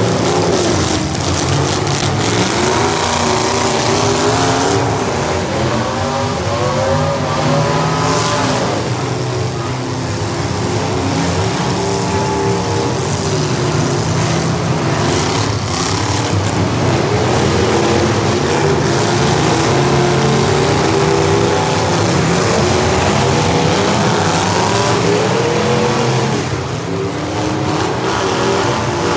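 Several demolition derby cars' engines revving hard, their pitches rising and falling over one another, with a few sharp bangs among them.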